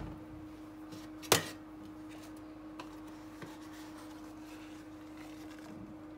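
Cake batter being scooped and scraped into a second container with a utensil, with one sharp knock of the utensil against the container just over a second in and a few faint clicks, over a steady low hum.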